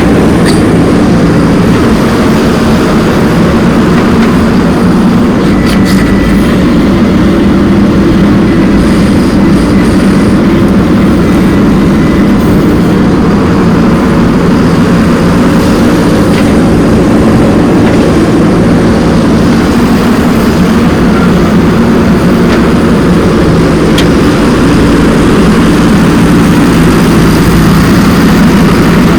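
Heavy diesel machinery engines running steadily and loudly, with a few faint clicks.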